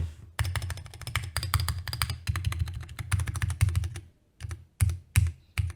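Typing on a custom mechanical keyboard with an aluminium plate and hot-swap PCB: a fast run of keystrokes until about four seconds in, then a few single key presses before it stops.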